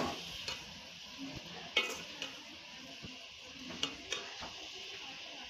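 A spoon stirring vegetables and chicken in a metal pot, scraping and clinking against the pot several times, over a steady sizzle of frying.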